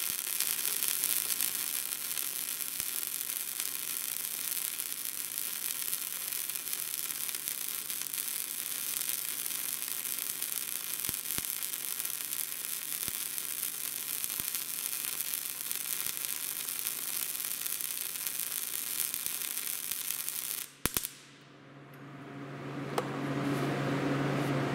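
Wire-feed welding arc running steadily with scattered small pops as the first bead of a shaft buildup is laid on a mild steel shaft. The arc stops about 21 seconds in, and a low steady hum follows.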